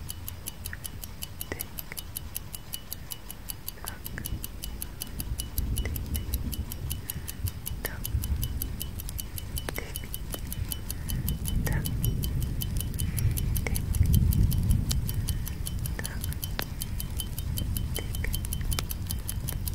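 Clock tick-tock sound effect: a fast, even run of light ticks, with scattered sharper clicks. A low rumble swells up in the middle and eases off again.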